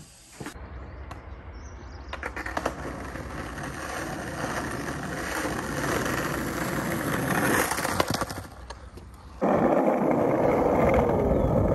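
Skateboard wheels rolling on rough asphalt, growing louder as the rider comes closer, with scattered clicks and cracks. About nine seconds in it cuts abruptly to a louder, steady rush of rolling noise while riding.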